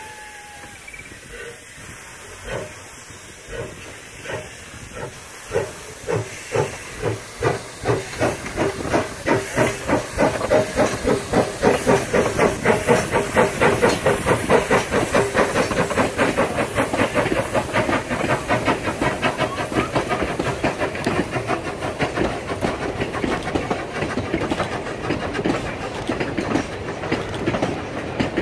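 Narrow-gauge steam tank locomotive starting away with its train: exhaust chuffs come about one a second at first and quicken steadily to several a second, over a steady hiss of steam. The sound is loudest as the engine passes close, then gives way to the coaches rolling by with a clatter of wheels on the rails.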